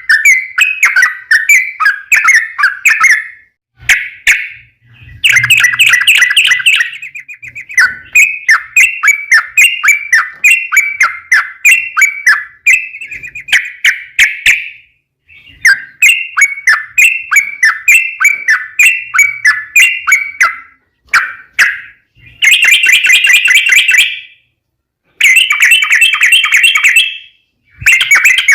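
Yellow-vented bulbul (trucukan) song: long rolling runs of rapid, bubbly chirping notes in phrases of a few seconds each, with short pauses between them.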